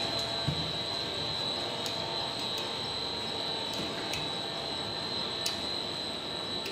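Plastic square-mesh net extrusion line running: steady machine noise with a high, even whine, and a few sharp ticks at irregular intervals.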